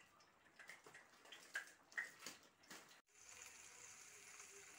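Near silence: faint scattered ticks, then a faint steady hiss from about three seconds in.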